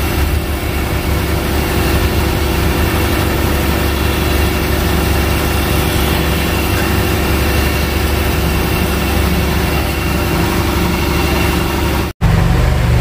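Engine idling steadily with a low, throbbing hum; the sound cuts out abruptly for an instant about a second before the end.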